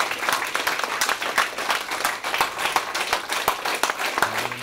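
Audience applauding: many people clapping their hands in a dense, continuous patter.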